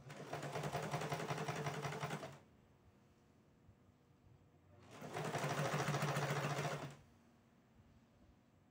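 Elgin household sewing machine stitching in two short runs of about two seconds each, with a pause of a few seconds between them. It is sewing bias binding slowly around a curved fabric edge, stopping and starting as the cloth is guided round the curve.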